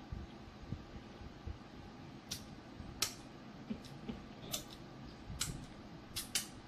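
Wet mouth smacks and finger-sucking clicks from someone licking spicy sauce off their fingers while eating: about half a dozen short sharp smacks spread out, over a faint steady hum.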